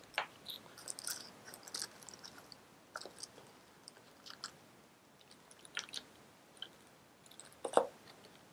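Scattered small clicks, taps and plastic crinkling from handling hardware: the Logitech Swytch extender on its plastic under-table mount and small parts in clear plastic bags on a wooden desk. One louder knock near the end.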